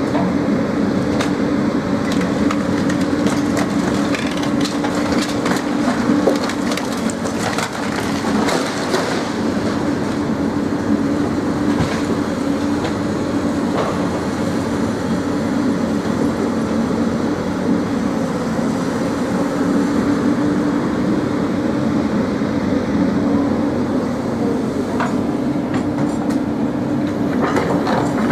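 Diesel engine of a demolition excavator running steadily under load, with cracking and snapping of timbers and debris being broken. The crackling is thickest a few seconds in and again near the end.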